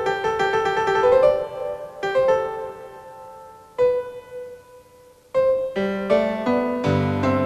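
Closing theme music on piano: a quick melody that thins out to a few single ringing notes about two seconds in, then picks up again with fuller chords and bass notes near the end.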